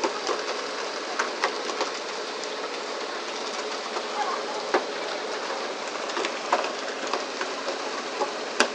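Steady rush of water spray and wash along a pole-and-line tuna boat's hull, with scattered sharp knocks and slaps as tuna and poles hit the deck, one louder knock near the end.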